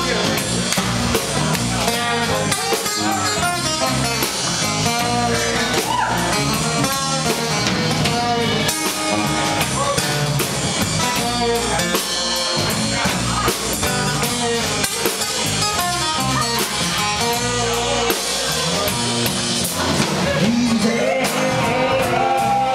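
Live band playing: acoustic guitar, electric guitar and drum kit, with a woman singing lead.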